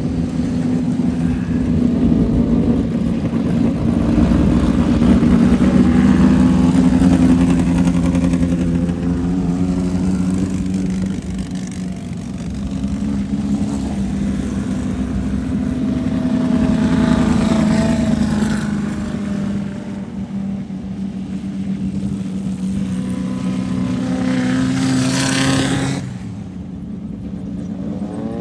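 Engine of a Class 1600 off-road race car, an air-cooled VW-based 1600 cc flat-four, running hard under load. Its pitch rises and falls as it revs, twice over the stretch. About 26 seconds in, the sound drops and turns duller.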